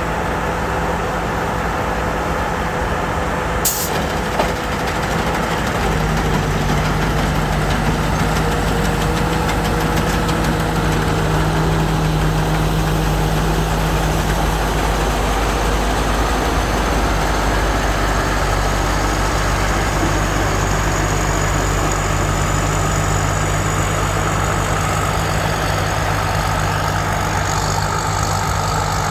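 Rice combine harvester engine running steadily while harvesting, its low note stepping up and getting louder about six seconds in. A single sharp click sounds near four seconds.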